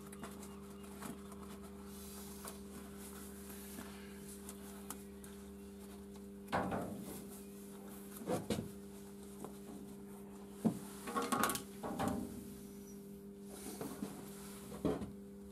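Faint rustles and small knocks as a disposable dust mask and glasses are put on, over a steady low hum.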